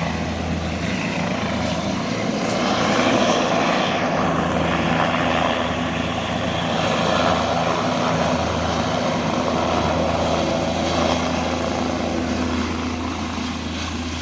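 Helicopter engine and rotor running steadily in flight: a loud, constant low hum under a broad rushing noise, easing off slightly near the end.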